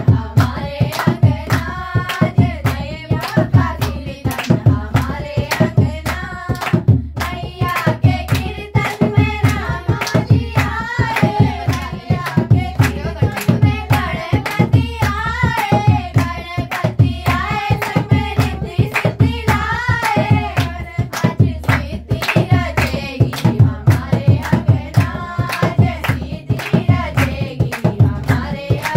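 Group singing of a folk song, kept in time by many hands clapping a fast, steady beat.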